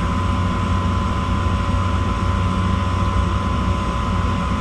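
Gas pack package unit running, with the steady hum of its draft inducer motor and a thin steady whine over it. The inducer is pulling a draft on the pressure switch that reads 1.0 inch of water column, above the switch's 0.45 rating, so the venting is not plugged.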